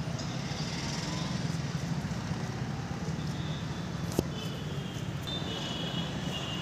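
Steady low hum of a vehicle engine running, with a single sharp click about four seconds in and faint high-pitched tones in the second half.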